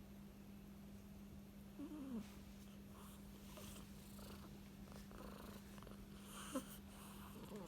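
Domestic cat giving one short, falling meow about two seconds in, then faint, rhythmic purring over a steady low hum.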